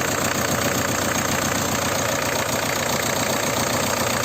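Ford Escort 1.8 four-cylinder diesel engine idling steadily, with the even rapid clatter of a diesel, running freshly rebuilt with a new cylinder head and timing belts.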